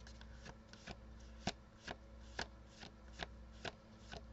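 A deck of tarot cards being shuffled by hand: a string of faint, sharp card snaps at irregular spacing, about two a second.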